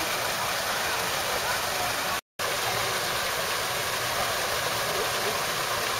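Waterfall pouring into a pool: a steady rush of water. It cuts out to silence for a moment about two seconds in.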